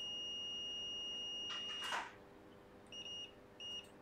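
Multimeter continuity beeper giving a steady, high-pitched beep for about two seconds, then two short beeps, as the probes touch a 33 µF capacitor on a MacBook Pro logic board. The beeping shows the capacitor is shorted, at very low resistance. A brief scratchy noise of the probe tips comes just before the steady beep stops.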